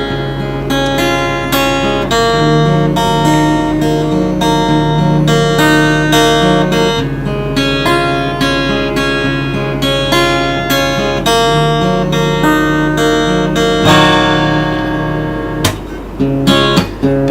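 Acoustic guitar picking a melody as the instrumental intro of a song, with a chord strummed and left ringing about fourteen seconds in.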